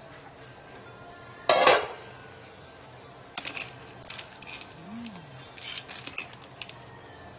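Kitchenware clanking against a steel pan of boiling clams. There is one loud ringing clank about a second and a half in, then several clusters of lighter clinks.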